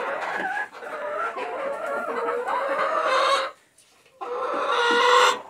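A flock of domestic hens clucking and calling continuously as they crowd around wanting to be fed, with a brief pause about two-thirds of the way through.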